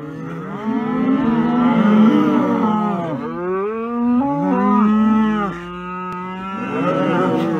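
A herd of cattle mooing, several long calls overlapping one another, with a short lull about six seconds in.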